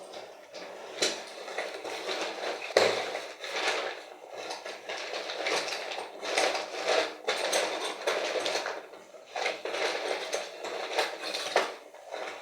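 Repeated clinks, knocks and rustling of tools and objects being handled.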